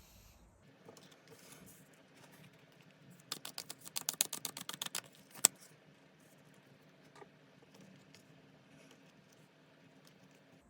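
Tarot cards being shuffled: a quick run of crisp card clicks lasting under two seconds, followed by one sharp snap of the cards.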